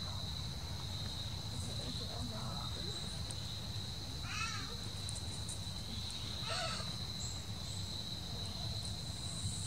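Insects singing in a steady, high-pitched drone over a low background rumble, with two short distant calls about four and a half and six and a half seconds in.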